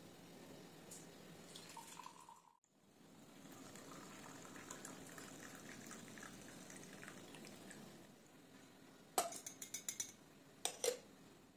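Tea poured from a metal teapot through a fine mesh tea strainer into a ceramic mug, a steady trickle of liquid. After the pour, a quick run of light clinks as the metal strainer knocks against the mug, and two more shortly after.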